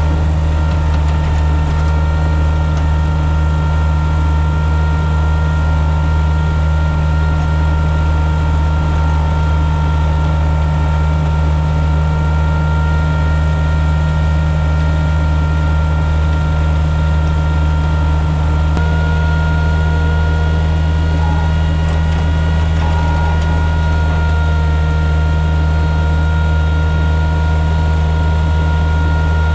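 John Deere 1445's diesel engine running steadily under load while it drives the front-mounted snowblower, heard from inside the cab. A strong low hum runs with steady whining tones above it. The whine shifts slightly after a small click about two-thirds of the way through.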